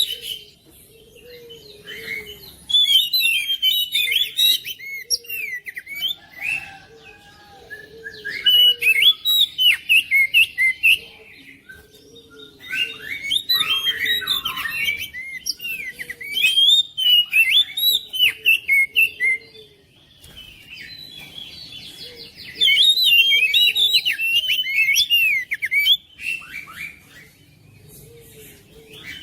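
Oriental magpie-robin (kacer) singing in loud bouts of fast, varied, gliding notes. Four bursts of a few seconds each are broken by short pauses, and a fifth starts at the very end.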